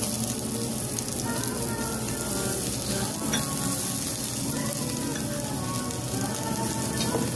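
Lamb sizzling steadily on a cast-iron Genghis Khan dome grill over charcoal.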